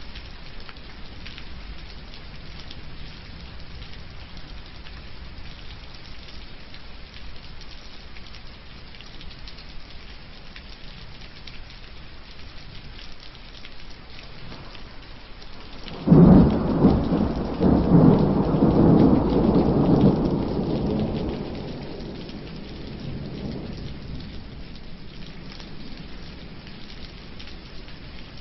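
Steady rain, heard from inside a wooden shed. About halfway through, a sudden loud clap of thunder breaks in and rumbles away over several seconds.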